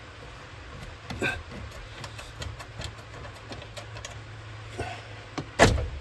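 Hand work on a steering column mounting nut under a truck's dash: scattered light metallic clicks and taps, with one loud knock about five and a half seconds in.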